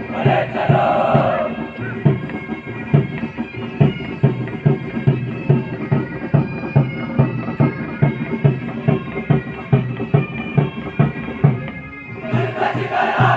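Military pipe band playing bagpipes over a steady marching drum beat, about two strokes a second. Voices shout briefly at the start and again near the end.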